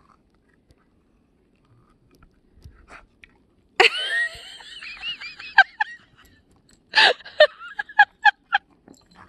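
A person laughing: a high, squealing laugh about four seconds in, then a run of short, quick laughs near the end.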